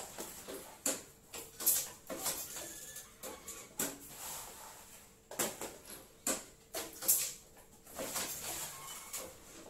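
Plastic packaging crinkling and rustling in irregular bursts, mixed with sharp clicks and knocks from hand work at a small packing machine.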